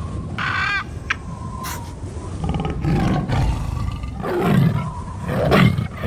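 Sound effects of a tiger roaring, the roars swelling to their loudest about four and a half and five and a half seconds in. Before them come a short high-pitched call and a few swishes.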